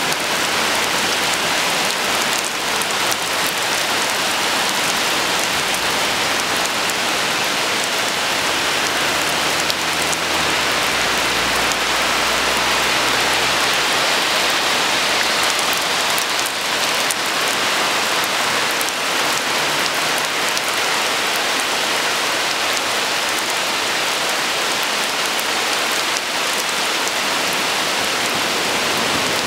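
Heavy rain pouring steadily onto a concrete driveway and the leaves of a tree, a dense, even hiss. A faint low rumble sits under it for several seconds about a third of the way through.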